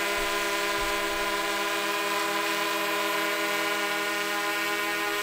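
Tarot 650 Sport quadcopter hovering: the steady, even hum of its electric motors and propellers.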